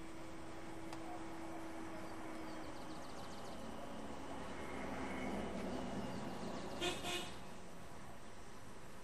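A distant vehicle horn sounds one long, steady note for about the first three seconds over a steady rushing noise. A vehicle's noise swells around the middle, followed by two sharp clicks about seven seconds in.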